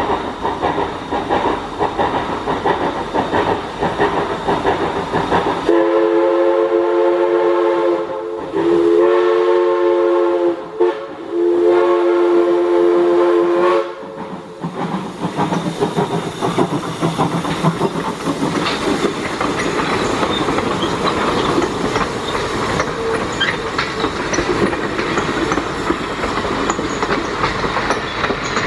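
Viscose Company 0-4-0 steam locomotive No. 6 running past, its steam whistle sounding long, long, short, long, the standard grade-crossing signal. The engine and its passenger coaches then roll by with wheels clicking over the rail joints.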